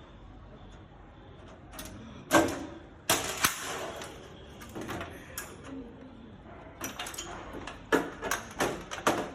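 Irregular sharp clicks, knocks and clatter of metal parts being handled while the power supply is taken out of an HP 500 MT desktop computer case. The loudest knocks come about two and a half seconds in and just after three seconds, and a run of clatter follows near the end.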